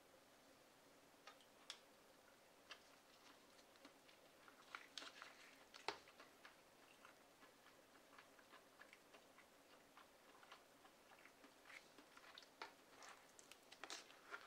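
Faint, scattered wet clicks and crackles of someone chewing a mouthful of cheesy rice gratin, with the fork working in the food again near the end.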